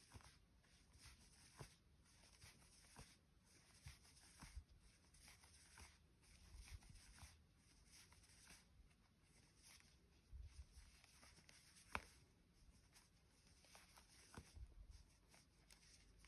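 Near silence with faint, scattered soft rubs and small ticks from a metal crochet hook working single crochet stitches through plush yarn. The sharpest tick comes about twelve seconds in.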